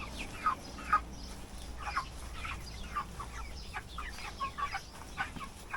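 A flock of meat chickens clucking, with many short, falling calls overlapping several times a second.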